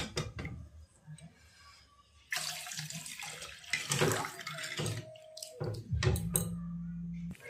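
Water poured from a plastic mug into a kadai of hot fried masala paste, splashing for about three seconds starting a little over two seconds in. A few sharp knocks come before and after the pour.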